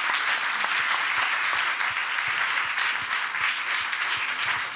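Audience applause: many people clapping steadily, easing off near the end.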